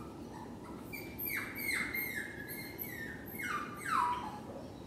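A Jack Russell terrier whining, left home alone: a string of high-pitched whines, each falling in pitch, loudest near the end.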